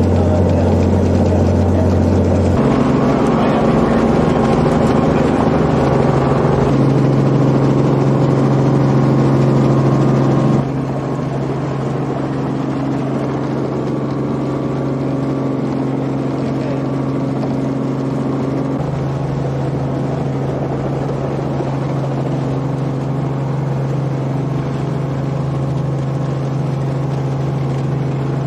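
Robinson R44 helicopter's six-cylinder Lycoming piston engine and rotors running steadily. The pitch steps up about two and a half seconds in, and the sound gets slightly quieter about ten seconds in.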